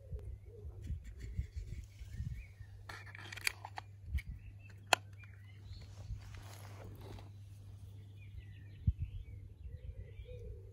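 Birds chirping, with a pigeon cooing, and a few sharp clicks as the model locomotive is handled; the loudest clicks come about halfway through and near the end.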